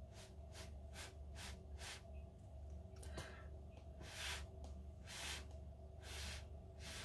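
Soft, short puffs of air, a quick run of them at first and then three longer ones about a second apart, over a faint steady hum.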